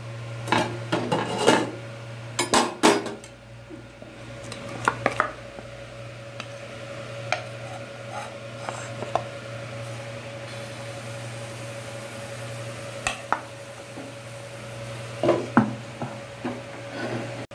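Kitchen utensils clattering against a tawa and a batter bowl as pancake batter is spooned onto the pan, in scattered knocks that are busiest in the first few seconds. A glass lid is set on the tawa near the end. A steady low hum runs underneath.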